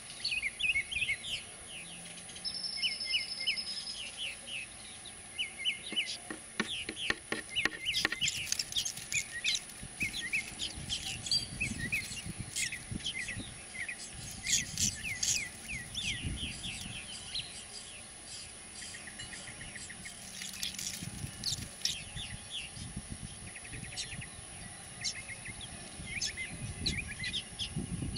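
Purple martins chirping: a continuous stream of short, quick chirps, with a cluster of clicks about six to eight seconds in.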